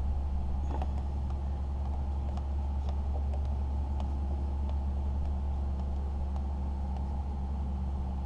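A steady low hum from a running motor, with a few faint clicks over it.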